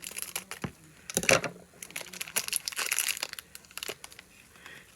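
Plastic packaging crinkling and rustling in the hands as a small blind-pack figure is unwrapped: a run of crackles, loudest about a second in.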